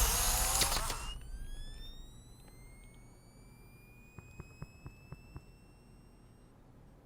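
Horror-film sound design: a loud noisy hit that cuts off about a second in, then a thin, slowly rising whine that fades away over several seconds. A few faint ticks come in the middle.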